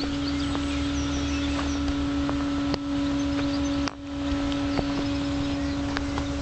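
Water pump running with a steady, even-pitched hum, pumping out floodwater through a hose, while small birds chirp now and then. The hum dips out briefly about four seconds in.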